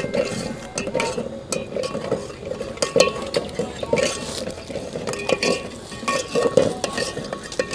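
Metal ladle stirring and scraping around an aluminium pot of coconut cream, with irregular small clinks against the pot; the cream is simmering on a gas burner until its oil separates.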